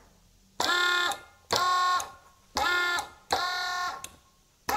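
Brushed electric motor of a Jabsco 17800-2000 oil-change pump, run in short bursts as the battery lead is touched on and off. There are four half-second bursts of a steady whine, and a fifth starts at the very end. It is being run briefly to break in its brushes on a freshly cleaned commutator.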